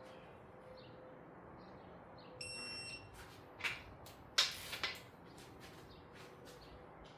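A digital torque-angle wrench gives one short beep about two seconds in, the signal that a main-cap bolt has reached its angle spec, followed by a few clicks and metallic knocks of the wrench and socket on the bolts, the loudest about four seconds in.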